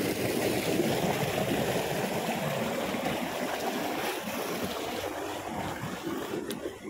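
Irrigation water running steadily through a field channel, a little quieter near the end.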